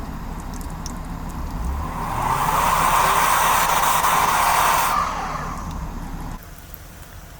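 A vehicle running with a low steady rumble. A loud rushing hiss swells up for about three seconds and cuts off suddenly. The rumble drops away sharply near the end.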